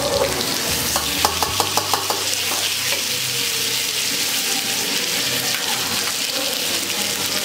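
Chicken pieces sizzling in oil on a hot flat griddle (tawa) over a gas flame, a steady frying hiss. About a second in there is a quick run of metallic clicks as tongs handle the meat against the pan.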